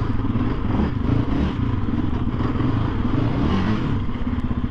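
2023 Yamaha Raptor 700R ATV's 686cc single-cylinder four-stroke engine running steadily, its exhaust giving a fast, even pulsing beat.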